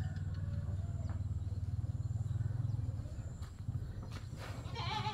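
Steady low rumble on the phone microphone with faint short bird chirps, then a goat bleating with a wavering, quivering call beginning a little over four seconds in.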